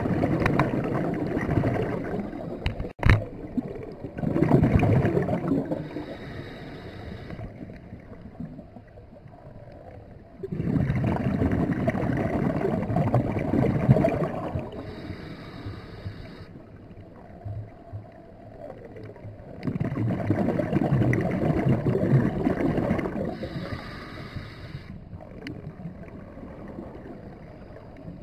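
Scuba regulator breathing heard underwater: long rushes of exhaled bubbles, each followed by a shorter, higher hiss of inhalation, about three breaths in all. A sharp click about three seconds in.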